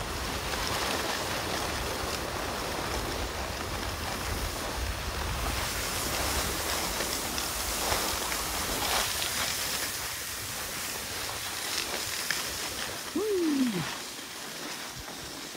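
Steady rushing hiss of sliding downhill over packed snow on a ski run. A short tone falling in pitch sounds about 13 seconds in, after which the rushing settles quieter.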